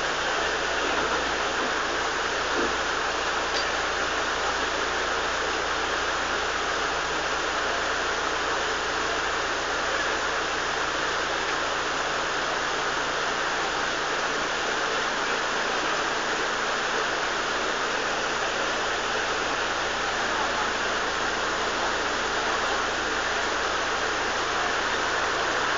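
Water rushing steadily into a canal lock through the open paddles as the lock fills.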